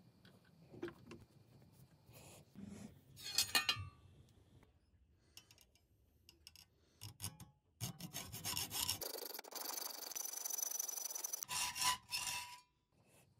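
Jeweller's piercing saw cutting a steel rod clamped in a vise: a few seconds of scattered clicks and knocks, then, over the last five seconds or so, a fast run of rasping saw strokes through the metal.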